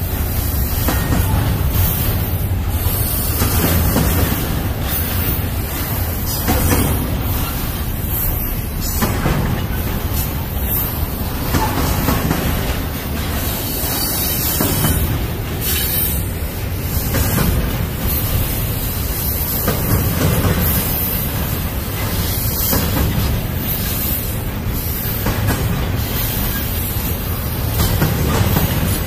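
Double-stack intermodal freight train rolling past: a loud, continuous rumble of steel wheels on rail as the container well cars go by.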